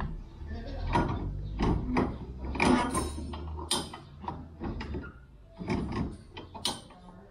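Irregular metal clunks, knocks and scrapes as an upright metal support post is handled and shifted into place under a boat's hard top, over a low hum that stops about six seconds in.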